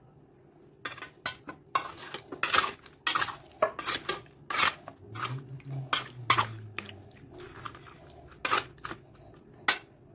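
A spoon clinking and scraping against an aluminium bowl in quick, irregular strokes while it mixes marinated beef chunks with tomato pieces. The strokes start about a second in.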